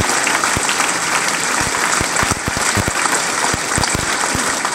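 A large seated audience applauding steadily, with many hands clapping at once.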